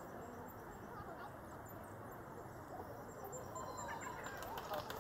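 Faint outdoor background of distant people talking, mixed with birds chirping.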